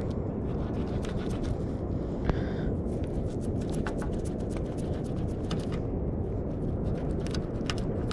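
Steady low noise with many small sharp clicks and scrapes scattered through it, and a slightly louder click a little past two seconds in.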